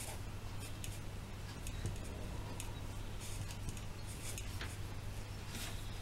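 Marker pens drawing on paper: many short, quick scratchy strokes, over a steady low hum.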